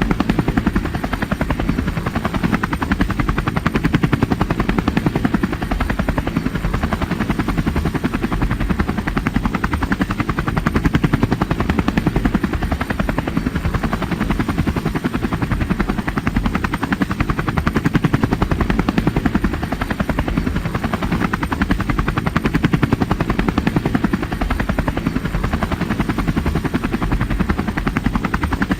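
Helicopter rotor beating steadily with a rapid chop and engine whine, the loudness swelling and easing gently every couple of seconds.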